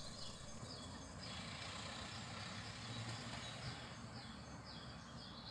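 Outdoor background: a steady rush of noise, with small birds chirping in quick falling notes in groups of three, near the start and again toward the end.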